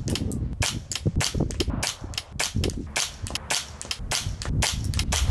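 A Thompson Center T/CR22 .22 LR rimfire rifle firing a string of sharp, quick shots.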